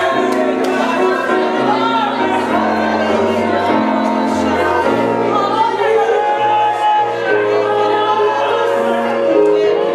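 Gospel worship song playing: sung vocals over sustained instrumental chords that change every second or so.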